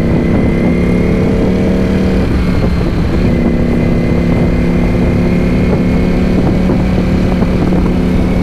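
Motorcycle engine running at a steady cruise, with wind rushing over the helmet-mounted microphone. The engine note drops out briefly about two seconds in, then settles again at a slightly lower pitch.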